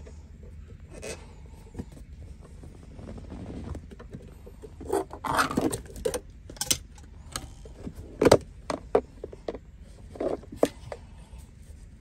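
An old cloth handbrake boot being worked loose by hand: the fabric rustles and scrapes against the plastic console, with scattered clicks and one sharp knock about eight seconds in.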